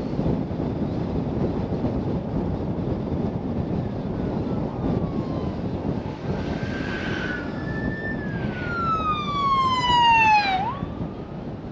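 An emergency vehicle's siren passing, its pitch sliding steadily down over a couple of seconds. It is loudest just before it jumps back up and fades near the end. Steady road and wind noise from the moving car runs underneath.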